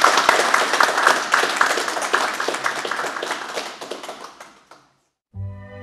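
A small group of people applauding with their hands, the clapping dying away about four and a half seconds in. Music starts near the end.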